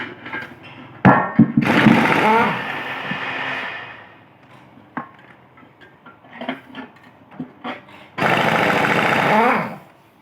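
A few sharp metal knocks about a second in, like hammer blows on a truck's steering box, then two loud bursts of a power tool running, the first about two seconds long and the second about a second and a half near the end, each ending with a sweep in pitch.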